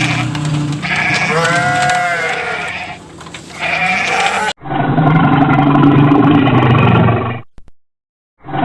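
A sheep bleating several times in wavering calls, followed by an abrupt cut to a different, steady low rumbling sound that drops out for about a second near the end.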